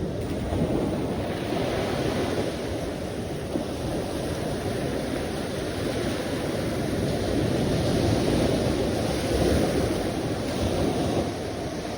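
Sea waves breaking and washing in as a continuous rush of surf, swelling louder a little past the middle and easing near the end.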